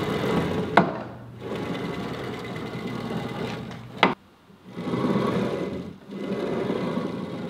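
Linear ball-bearing blocks of a heavy aluminium CNC gantry rolling along fully supported round steel rails as the gantry is pushed back and forth by hand. The rolling sound comes in several strokes with short pauses between them, and there is a sharp knock a little under a second in and another about four seconds in.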